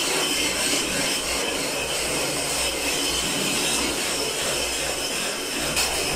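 Plastered walls being rubbed down by hand with pieces of aerated concrete block: a continuous gritty scraping and rasping.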